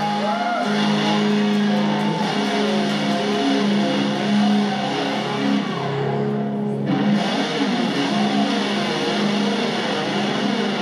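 Electric guitar played through a Marshall combo amplifier, heavily distorted, with long held notes that shift in pitch and some bends.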